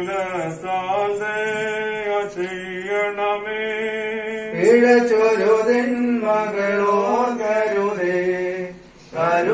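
Singing of a Malayalam Christian hymn, long drawn-out notes sung in phrases. It grows louder about halfway through, and breaks off briefly between phrases near the end.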